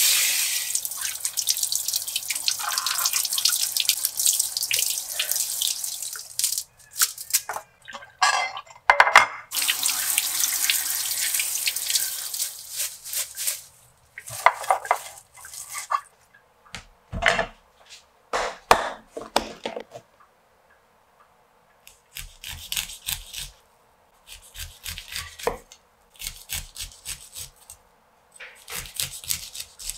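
Kitchen tap running into a bowl as wood ear mushrooms are rinsed, then turning on and off with splashing as cilantro is washed in the sink. Over the last several seconds come short runs of dull knocks: a cleaver cutting corn kernels off the cob on a wooden chopping board.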